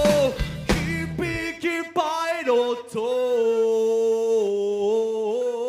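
A live band ends a song with a few last hits in the first second and a half, then a male vocalist holds a long unaccompanied sung note through the PA, its pitch stepping slightly a few times.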